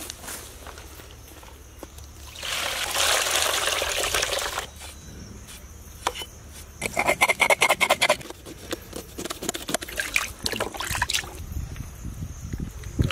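Water poured into a plastic tub holding a large fish for about two seconds, then quick rhythmic splashing and rubbing as the fish is washed by hand in the tub, with scattered smaller splashes and knocks after.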